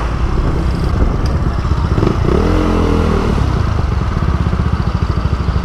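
Motorcycle engine running steadily, with a brief rise and fall in pitch about two seconds in, then a steady pulsing beat.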